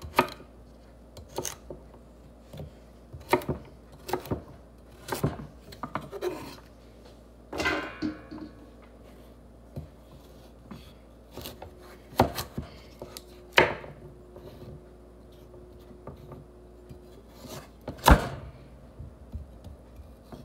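Chef's knife cutting carrots on a wooden cutting board: irregular knocks of the blade hitting the board, with pauses between cuts.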